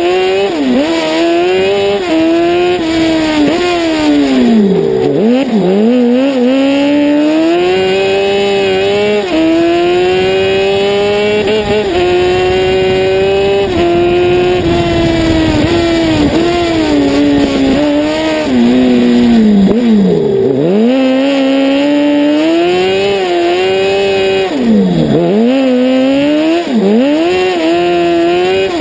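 Honda 600 engine of an Ape Proto racing three-wheeler, heard from a camera on its bonnet, revving hard through a lap. The note climbs in steps through the gears, then drops sharply several times as the throttle is lifted for corners.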